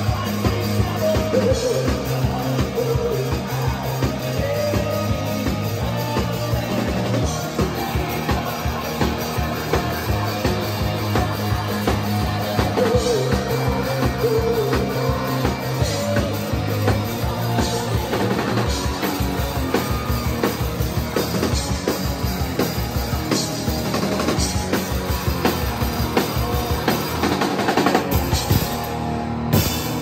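Live rock band playing: a steady drum-kit beat under electric guitar, with a singer's voice over the top.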